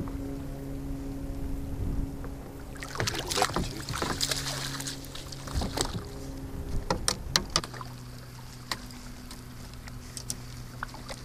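Boat motor running steadily while trolling, its hum dropping slightly in pitch a little past halfway. Scattered sharp clicks and knocks, with a burst of hissy noise around three to five seconds in.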